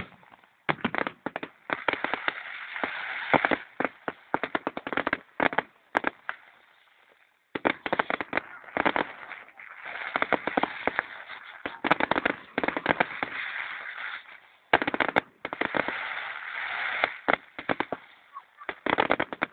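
Fireworks display: rapid volleys of bangs and crackling shells in three waves, with brief pauses about six seconds in and again about fourteen seconds in.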